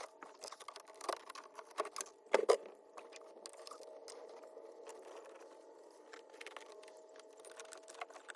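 Small clicks and rustles of a microphone wire being handled and pushed behind plastic dash and pillar trim, with a louder pair of knocks about two and a half seconds in, over a faint steady hum.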